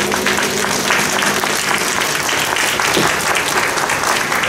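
Audience applauding, while a large Chinese gong struck just before rings on and fades out in the first second and a half.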